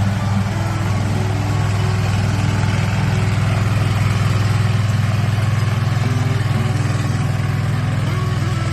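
John Deere 1025R compact tractor's three-cylinder diesel engine running at a steady speed, a constant low hum.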